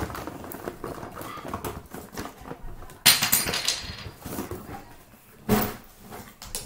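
Things being handled and set down on a bathroom counter, with a sudden clatter about three seconds in and another knock later.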